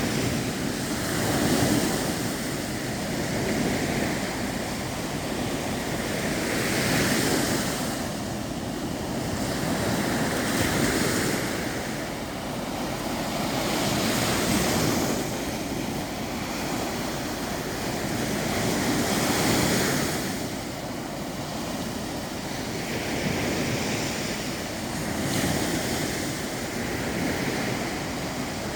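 Baltic Sea waves breaking on the shore, the surf swelling and easing every few seconds, with wind noise on the microphone.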